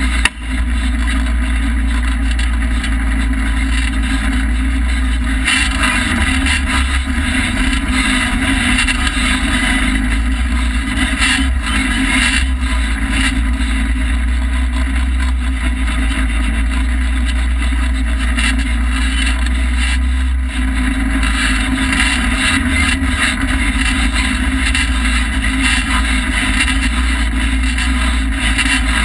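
Polaris RZR side-by-side driving along a dirt trail, heard from inside its open cab: a steady engine drone with a few brief knocks and rattles.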